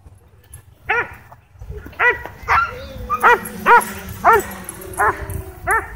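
A dog barking repeatedly, about eight sharp barks over some five seconds, worked up by a drone flying low over the dog park.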